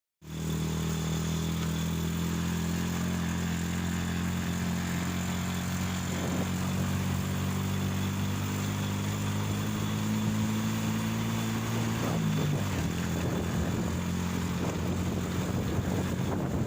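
A steady engine hum made of several even tones, shifting slightly in pitch about twelve seconds in, over a constant noisy hiss.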